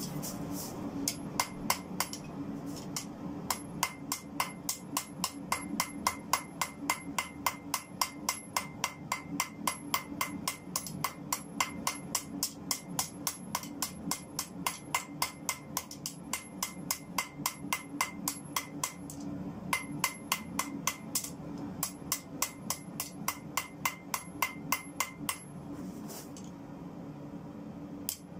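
Hand hammer striking a red-hot spring-steel bar on an anvil in a fast, even rhythm of about three blows a second: the hot steel of a recycled car spring being forged into a crowbar. The blows pause briefly twice and stop near the end, over a steady low hum.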